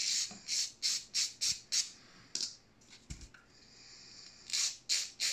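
A small 3D-printed plow wing twisted between the fingers to break it off its crushed print supports: a run of short, scratchy squeaks and crackles, about three a second, with a lull in the middle.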